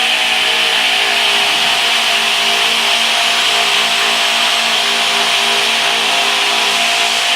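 The two 3 HP cutting heads of a Wegoma SD16S double-head miter saw running steadily with their blades spinning, a constant motor hum and blade whine with no cut being made.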